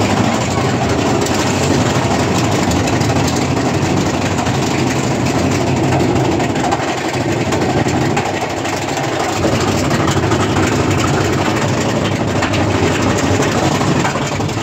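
Mine-train roller coaster cars running along the track: a loud, steady rumble that wavers in strength without a break.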